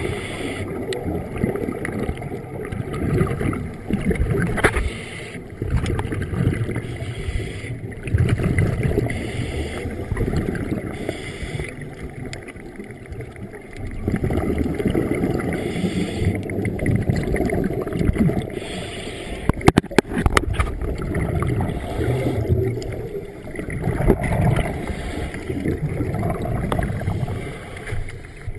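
Scuba diver's regulator breathing underwater: long bursts of exhaled bubbles rumbling for a few seconds at a time, with quieter stretches between breaths. A few sharp clicks come about twenty seconds in.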